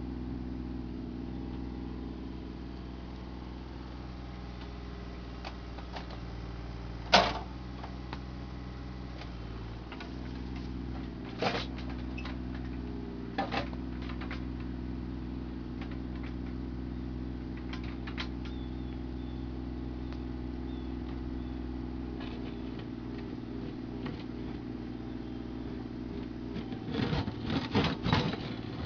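Mini excavator's diesel engine running steadily, with a few sharp clanks from the bucket and arm, the loudest about seven seconds in. Near the end comes a quick run of knocks and scrapes as the bucket digs into the stony trench.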